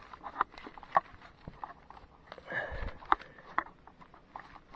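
Cloth rubbing and wiping over an electric scooter's metal swing arm, with a few short sharp clicks scattered through it.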